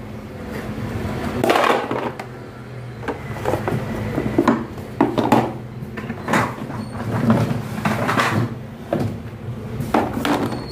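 Rigid plastic wardrobe panels being pulled one by one from a cardboard box and set down on a tiled floor: irregular knocks, clatters and cardboard scrapes about once a second, over a steady low hum.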